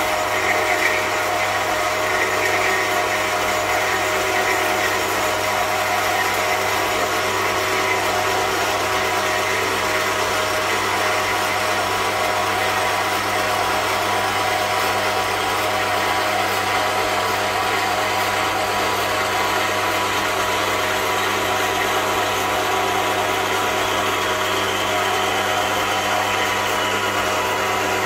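Axminster MCB115SHD metal-cutting bandsaw running steadily, its blade cutting through a tube clamped in the vise: a constant motor hum under the blade noise. A faint high tone slowly drops in pitch over the second half.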